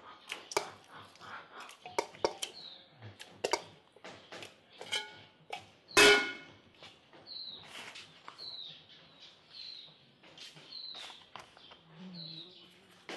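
Pieces of raw pork dropped into an aluminium pressure cooker with soft knocks and clatter, and one loud ringing metal clang about six seconds in as the aluminium colander strikes the pot. In the second half, small birds chirp repeatedly, short falling calls about once a second.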